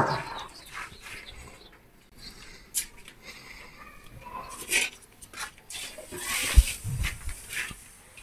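Dry straw chaff rustling and crunching as it is scooped by hand into a metal pan, with scattered steps and handling knocks and one dull thump about two-thirds of the way through.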